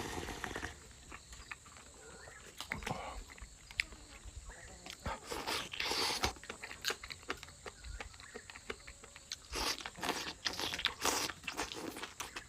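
A person eating chicken: chewing and biting with crunching sounds that come in irregular bursts, louder about halfway through and again near the end.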